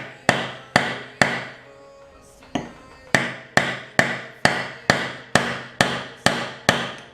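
Hammer blows on a steel bushing driver, tapping a new bushing into a 4L60E input sun gear. The sharp metallic strikes ring briefly and come about two a second, three, then a pause of over a second, then a steady run of about ten.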